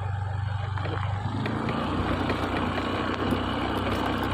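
Small motorcycle engine running steadily at low speed. After about a second and a half the sound turns rougher and noisier.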